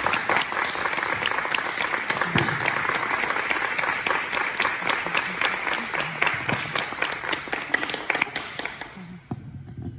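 Audience applauding: dense clapping from many hands that thins and dies away about nine seconds in.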